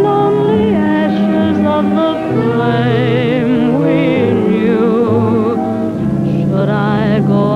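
Big-band swing music from a 1940s film soundtrack, with held, wavering notes that sound like singing over the band. The sound is dull and narrow, with no highs above about 4 kHz, as on an old optical soundtrack.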